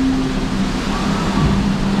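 Steady rushing noise and low rumble of a log-flume ride heard from aboard a wooden boat, with a few held low tones over it.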